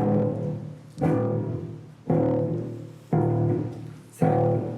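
Music: a stringed instrument strikes a low chord about once a second, each one ringing out and fading before the next.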